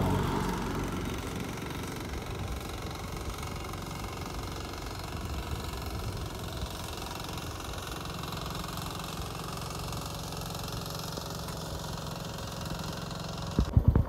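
A vehicle engine idling steadily with a low, even hum, then a few sharp thumps in quick succession near the end.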